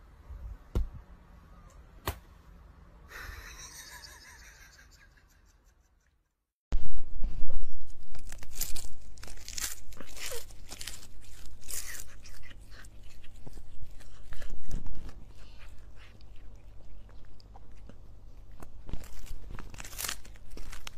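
A cat gnawing and crunching on a chewing stick close to the microphone: dense, irregular crunches and bites that start suddenly about seven seconds in and carry on, after a quiet stretch with a few faint clicks.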